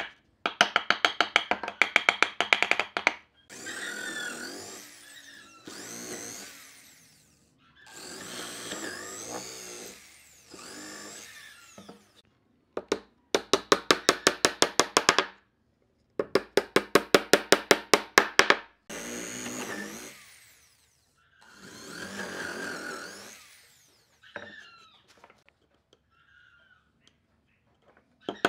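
Woodworking tool noise: runs of rapid, evenly spaced sharp strikes, each lasting two to three seconds, alternate with longer scraping strokes of about two seconds each.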